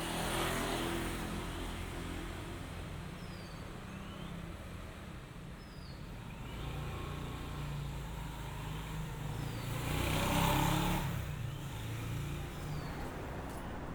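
Motor scooters passing along a street, each one rising and then fading, with the loudest pass about ten seconds in over a low steady engine hum. Faint short high chirps recur every couple of seconds.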